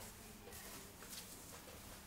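Hands working through long hair in a head massage: soft rustling strokes of hair and scalp against fingers, a few in quick succession.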